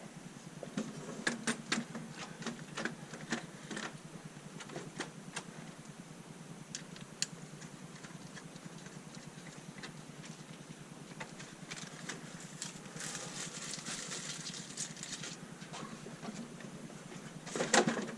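Scattered clicks and knocks of objects being handled, with a rustling stretch in the middle and a louder clatter near the end.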